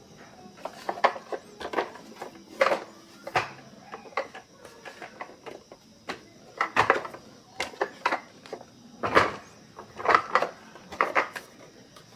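Irregular sharp clicks and knocks of small hard parts being handled and set down on a work surface, about one or two a second.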